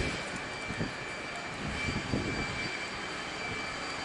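A steady, distant engine drone with faint knocks of hand work.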